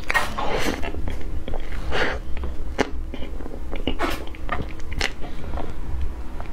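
Close-miked eating of soft cream cake: wet mouth smacks and chewing, with irregular clicks and squelches as spoonfuls of buttercream and sponge go in.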